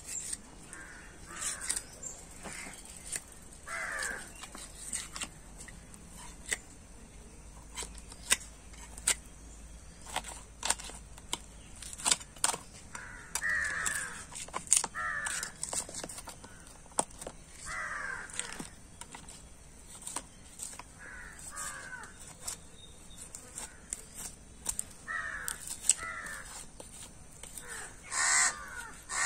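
Crows cawing repeatedly in short bursts, over scattered sharp clicks and taps from a knife cutting meat on a wooden chopping block.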